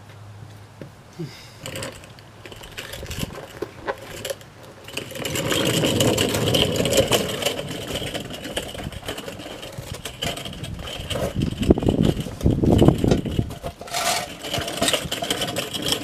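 Mechanic's creeper rolling and rattling over a concrete floor, its small caster wheels making a rapid, dense rattle with scuffing as a person moves under the truck. It starts about five seconds in after a few light clicks and swells again near the end.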